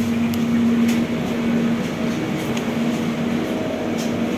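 Steady electric hum inside a Soekarno-Hatta airport train passenger car, one constant low tone over an even hiss, with a few faint clicks.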